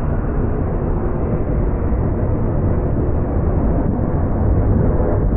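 Freight train rolling past: a steady, loud rumble of steel wheels on the rails, growing a little louder toward the end.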